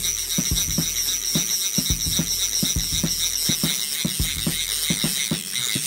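Fly reel's click-and-pawl drag ratcheting fast and without a break, starting suddenly. A drum beat from background music runs underneath.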